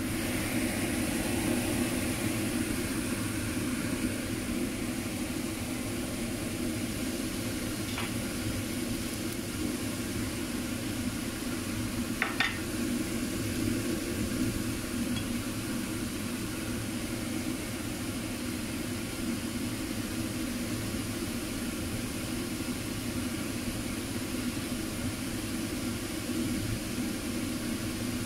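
Potato slices topped with sauce and cheese sizzling steadily in a nonstick frying pan, over a steady low hum. There are two small clicks, about 8 and 12 seconds in.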